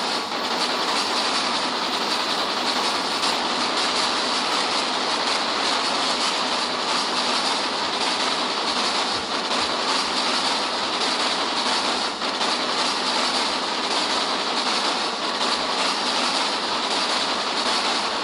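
A Simplex fire alarm sound, copied over on itself many times and distorted into a dense, harsh, steady noise with no clear pitch.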